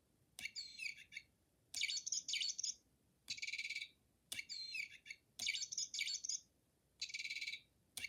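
Phil the Bird, a toy bird, chirping and trilling in short high-pitched bursts with brief pauses between them. The same buzzy trill comes back several times, each burst starting with a faint click, as from a toy's small speaker.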